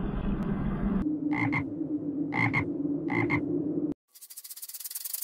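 A frog croaking three times, each call a quick double note, over a steady low drone. It is preceded by a low rumbling noise and cut off near the end by a fast, high-pitched rattling buzz.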